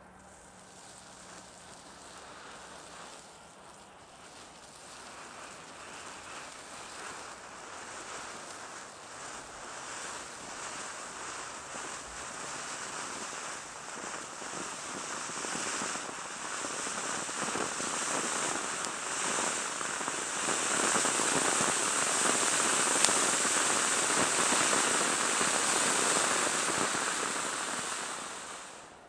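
Klasek F250C Vulkán ground fountain firework burning, its spray of sparks giving a continuous hiss with fine crackling. It grows steadily louder through the burn and fades out near the end as the fountain burns down.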